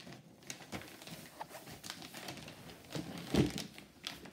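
Scattered light clicks and taps of things being handled, with one duller, louder thump about three and a half seconds in.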